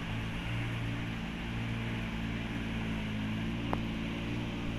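WWII GMC CCKW 6x6 army truck's straight-six petrol engine running steadily as the truck moves at low speed. There is one short click about three and a half seconds in.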